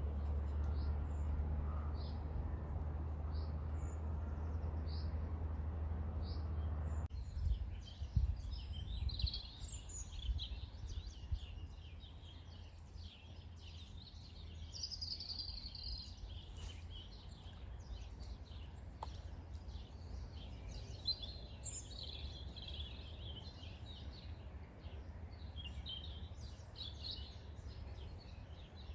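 Many small birds chirping and twittering. A steady low rumble covers the first several seconds and cuts off suddenly, with a few thumps just after.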